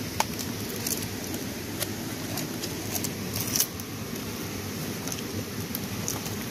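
Fresh palm-leaf strips rustling and crackling as they are pulled tight and knotted around a leaf-wrapped parcel, with a quick run of sharper crackles about three and a half seconds in, over steady background noise.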